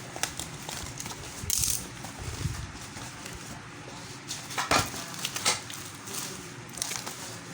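Unboxing handling noises: packaging rustling, with a few sharp clicks and knocks, the loudest about five seconds in.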